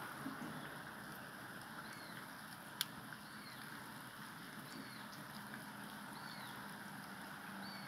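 Muddy rainwater running over a flooded dirt road, a faint steady rush. A bird gives short chirps about every second and a half, and there is one sharp click about three seconds in.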